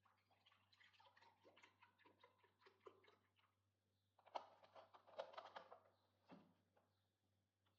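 Near silence with faint light clicks and taps, a denser, slightly louder cluster of them about halfway through, over a faint steady low hum.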